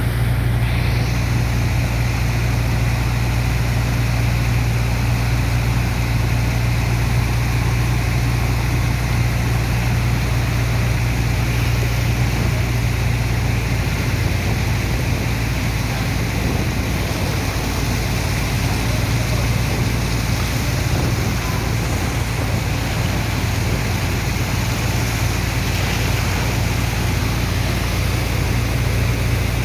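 Sand dredger's engine and pump running steadily: a low, even hum under a broad rush of water.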